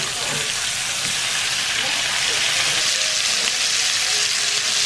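Two steaks sizzling as they pan-sear in butter and garlic in a nonstick frying pan: a steady, even hiss of frying fat.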